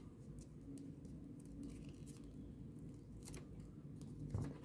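Faint rustling and light clicks of folded paper as one origami sonobe unit's flap is slid into another unit's pocket, over a low steady hum.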